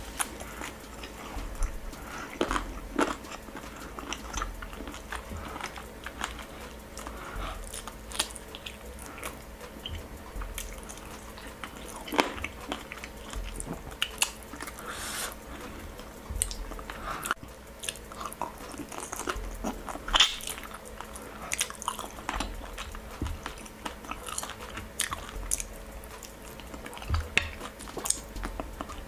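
A person eating chicken stew with their fingers: chewing, with irregular wet smacks and clicks as they suck and lick sauce off their fingers.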